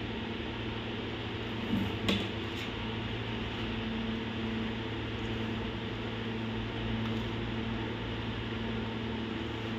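A steady low hum over a constant hiss, as from a running motor, with a few short clicks about two seconds in.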